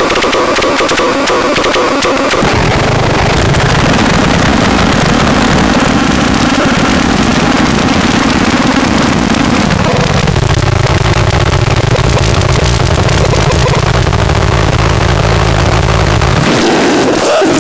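DIY synthesizer playing a loud, gritty low drone, like an engine, that comes in about two and a half seconds in and drops out near the end, under a noisy, hissing upper layer that shifts about ten seconds in.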